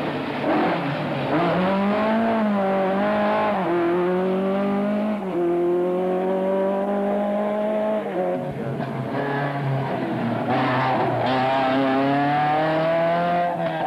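Rally car engines at full throttle, each pulling hard through the gears. The pitch climbs and then drops at each change, around three and a half and five seconds in. After about eight seconds another car's engine comes in, its pitch rising again from about ten seconds.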